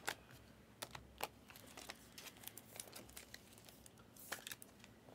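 Faint, irregular clicks and taps over quiet room tone.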